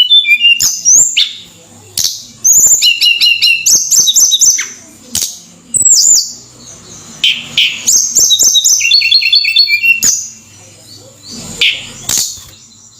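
Tledekan gunung singing: loud phrases of quick, high whistled notes, many of them falling in pitch and repeated in fast runs, with short pauses between phrases and a longer lull near the end.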